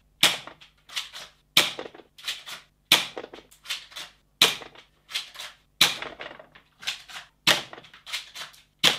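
Vigor V302 spring airsoft pistol firing 0.12 g BBs one at a time at a plastic airsoft target, with the BBs striking the target plates: about seven sharp cracks a little over a second apart, each followed by several lighter clicks.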